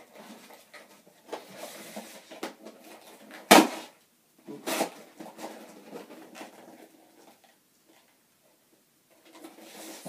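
Knife cutting packing tape on a cardboard shipping box, with scraping and rustling cardboard as the box is worked open. A sharp knock about three and a half seconds in and a smaller one about a second later, then a short quiet spell before the rustling starts again near the end.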